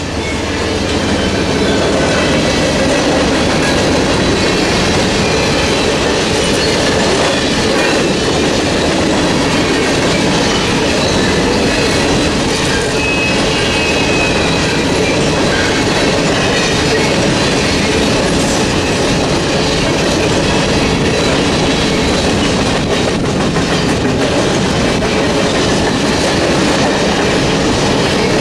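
Freight train of covered hopper cars rolling through a level crossing, steel wheels running over the rails in a steady loud rumble that builds over the first couple of seconds and then holds. The crossing's electronic bell keeps ringing underneath while the gates are down.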